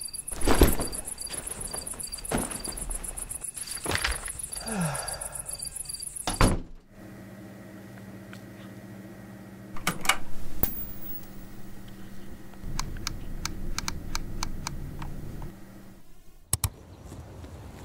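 Crickets chirping with several dull thunks, like a door and footsteps. About seven seconds in it changes to a steady low electrical hum with a run of short clicks, like a computer mouse, and one sharper click near the end.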